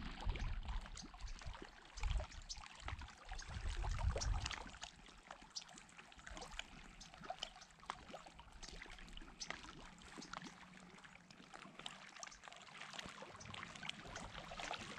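Small waves lapping and trickling against the stones of a reservoir shore, a faint crackle of many tiny splashes, with low rumbles during the first four seconds.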